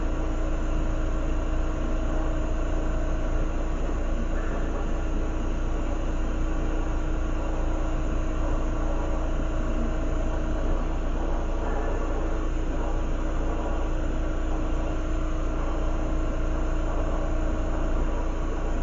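Steady rushing noise of a lampworking glass torch and its bench equipment, with a constant low hum underneath.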